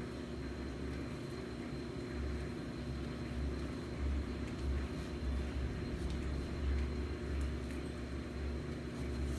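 Steady low background rumble that swells and fades a little, with a few faint ticks over it.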